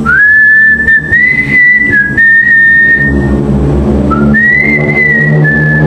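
High whistling: a held whistled note that slides up at the start and steps slightly in pitch, breaks off about three seconds in, then starts again a second later. A low steady drone runs underneath.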